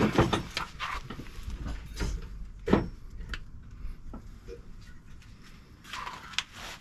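Metal tools clinking and knocking against the rear brake caliper while its 14 mm bolt is undone. There is a cluster of knocks in the first second and one sharp knock about two and a half seconds in.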